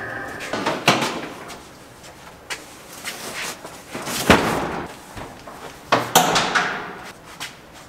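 Items being moved and set down inside a metal storage unit: a series of knocks, thuds and scrapes, the sharpest about four seconds in, with others about one second in and about six seconds in.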